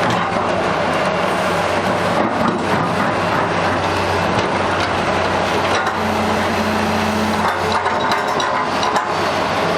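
Sumitomo S280FA hydraulic excavator's diesel engine running steadily, with a few short clicks and knocks near the end.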